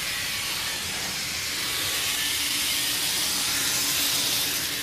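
Vintage TOMIX N-gauge KiHa 58 model railcar running round the track: a steady hissing whir from its small motor and wheels on the rails, with a faint low hum underneath, growing a little louder towards the middle.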